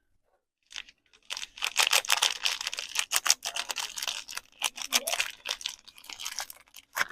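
Soap packaging being unwrapped: a dense run of crinkling and tearing of the wrapping, starting about a second in, with one short sharp crinkle at the very end.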